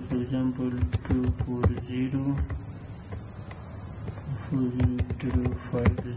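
Clicks of keystrokes on a computer keyboard as numbers are typed, under a man's steady talking.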